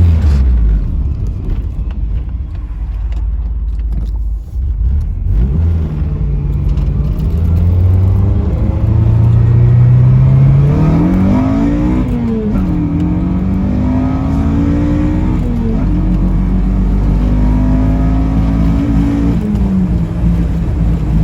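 Honda K24 four-cylinder engine in a mid-engined Toyota MR2 pulling under acceleration. The revs run low at first, then climb and fall back three times in the second half as it is shifted up through the gears.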